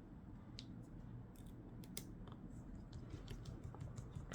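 Faint, scattered small clicks and taps, about six, of a screwdriver and tiny screws being fitted back into a tablet's frame.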